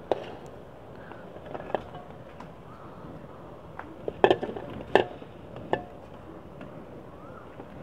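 Metal strainer knocking against the rim of a pressure cooker pot as chopped vegetables are tipped in: several sharp metal clinks, the loudest two about four and five seconds in.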